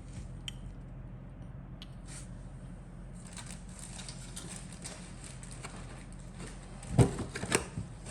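Handling of a plastic model kit's box and parts: light rustling and crackling with small clicks, and two knocks about seven seconds in, over a steady low hum.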